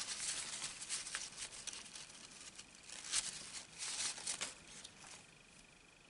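Paper tissue rubbing and crinkling against the metal edges of an iPod Nano as it is wiped clean, a run of scratchy wiping strokes that are strongest about three to four seconds in and die away near the end.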